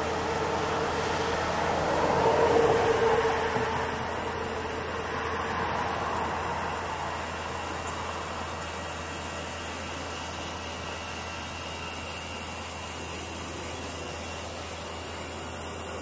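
A road vehicle passing by, swelling to its loudest about two and a half seconds in and then fading into a steady background rumble and hiss.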